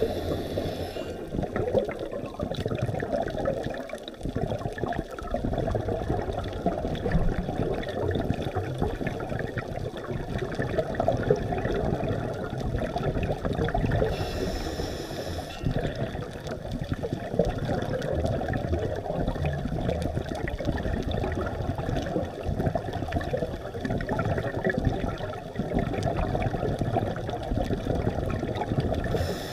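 Steady muffled rumble of water heard underwater. Scuba divers' exhaled regulator bubbles rush and hiss briefly at the start, again about halfway through, and at the end.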